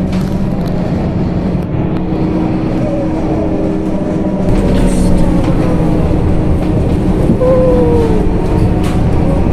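Cabin noise on the upper deck of a moving double-decker bus: a steady engine and road rumble with a low hum, growing a little louder about halfway through, and a brief high whine about three-quarters of the way in.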